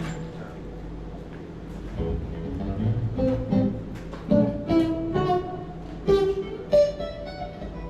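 Guitar played on its own during a sound check: quiet for about two seconds, then single picked notes and short phrases, each note struck sharply and left to ring, the loudest a little past the middle.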